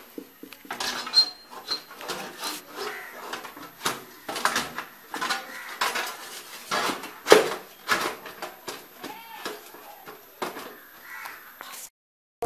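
Metal power supply unit being handled and fitted into a steel PC case: irregular metallic knocks, scrapes and clatter, with the loudest knock about seven seconds in. The sound drops out briefly just before the end.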